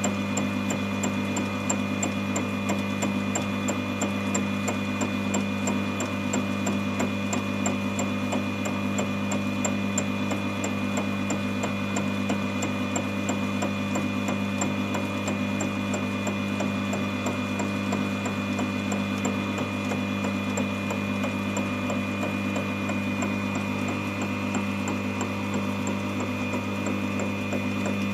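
Small Proxxon milling machine running a home-made fly-cutter through a facing cut on a metal block: a steady motor hum and whine with a fast, even ticking from the cut.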